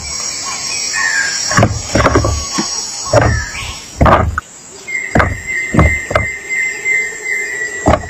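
High-pitched squealing begging calls of nestlings in a tree-cavity nest as the adult bird comes down to them, with several dull thumps. About five seconds in, the calling changes to a lower, wavering note.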